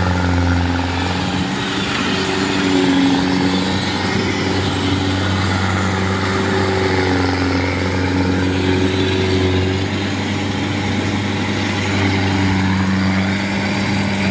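Kubota DC-105X rice combine harvester working in the field, its diesel engine running steadily under load. The mechanical noise of the cutting and threshing gear runs over the engine, and the engine note wavers slightly as the machine moves and turns.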